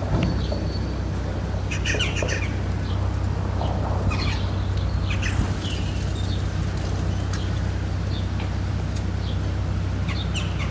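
Small birds chirping outside, short high calls scattered through, over a steady low hum.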